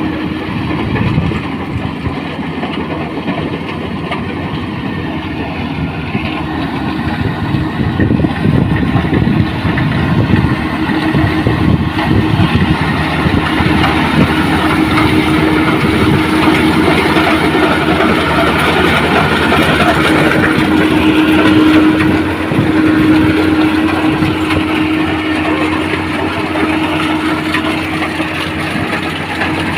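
Rice combine harvester running: steady engine and machinery noise with a constant hum, growing somewhat louder about ten seconds in.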